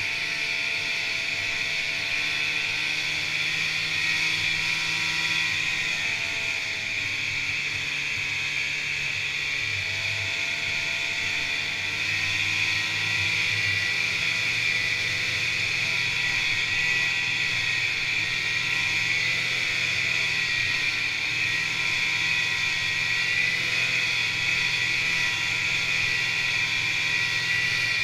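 Snowmobile running at a steady trail-riding speed, the engine note wavering slightly up and down, with a strong steady high whine over it.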